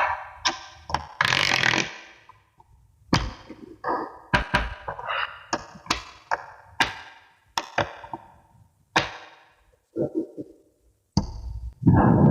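Small magnetic balls clicking and snapping together as they are handled, in a dozen or so sharp clacks at uneven intervals. A longer rattle of balls shifting against each other comes about a second in and again near the end.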